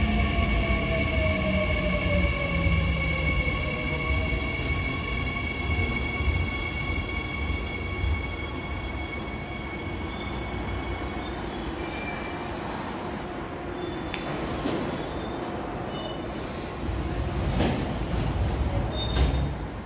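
Seoul Line 3 GEC chopper-control subway train braking to a stop at the platform. Its motor whine falls in pitch as it slows, over a rumble that fades away. High squealing comes in mid-way, and there are a few clicks and knocks as it comes to rest near the end.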